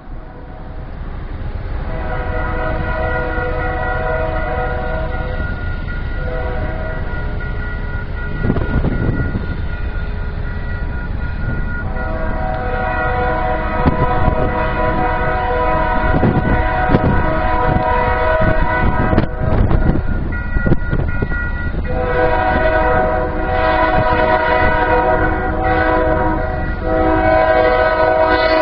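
Diesel locomotive's multi-chime air horn blowing long blasts as the train approaches a road crossing, the usual crossing warning. The horn comes in about two seconds in and breaks briefly twice, with the low rumble of the moving train underneath.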